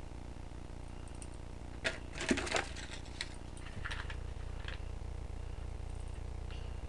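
Handling sounds: a quick cluster of clicks and light clatter about two seconds in, then a few softer ticks, as the knotted steel nails are set down and a sheet of paper is picked up. A steady low electrical hum runs underneath.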